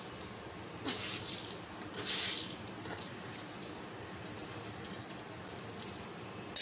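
Metal spatula scraping and stirring in an aluminium wok of vegetable curry: a soft scrape about a second in, a louder one about two seconds in, then fainter scrapes.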